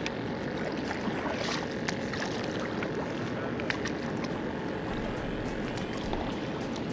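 Water sloshing and splashing around paddle boards, with small sharp splashes and drips scattered through; a low rumble comes in about five seconds in.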